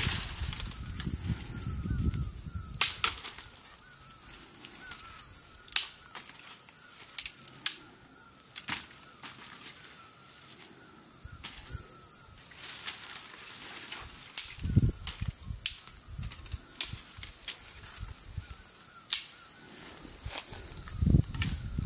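Steady, pulsing high chorus of insects, with scattered sharp clicks and snaps and a few low rustling thumps.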